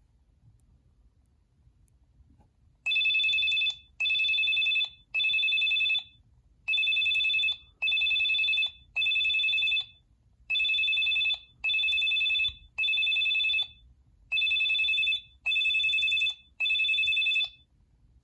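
Cingular 8525 (HTC Hermes) Pocket PC phone playing a ringtone through its speaker: an electronic telephone-style ring of two high tones at once with a fast flutter. It comes in four groups of three rings, each ring about a second long, starting about three seconds in.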